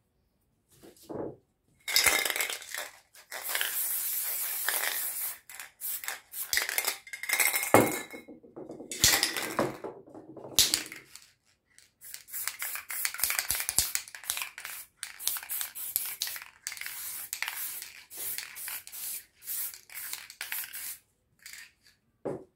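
Aerosol spray paint cans hissing in a string of short and longer bursts, with metallic clinks and knocks between them. A short pause comes about halfway through.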